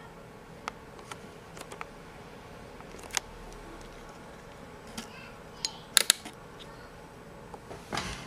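Irregular small clicks and taps from fingers handling wires and plastic connectors on a circuit board, the sharpest a quick pair of clicks about six seconds in and a rustle near the end, over a faint steady hum.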